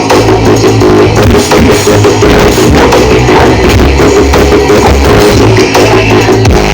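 Rock-style music with drums and guitar played very loud through a large carnival (horeg) sound system during a sound check, with heavy bass that pulses on and off with the beat.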